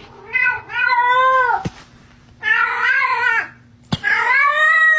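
A domestic cat meowing in long, drawn-out yowls: a short call, then three long calls, each rising and then falling in pitch. Two sharp clicks fall between the calls.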